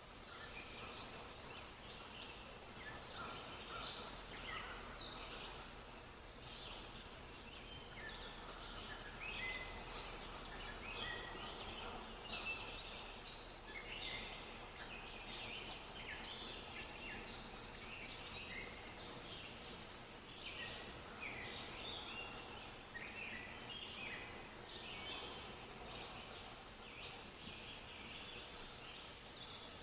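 A chorus of small birds chirping and twittering, many short overlapping calls with no break, over a faint steady background hum.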